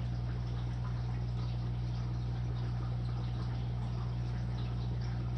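Aquarium filter running: a steady low hum with fine trickling, bubbling water over it.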